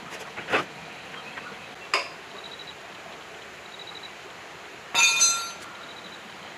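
Metal clinks from hand tools and radiator fittings as a new radiator is bolted onto a diesel generator set. There are a few light knocks, then a louder ringing clank about five seconds in.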